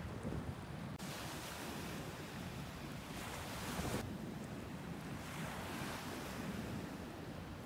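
Pacific surf breaking and washing up a sandy beach, a hiss that swells twice, over a low rumble of wind on the microphone.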